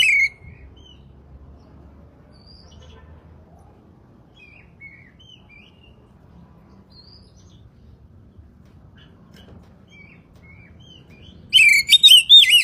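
Oriental magpie-robin (kacer) singing: loud, rapid whistled phrases that end just after the start, then about eleven seconds of only faint, scattered chirps, then the song returns near the end.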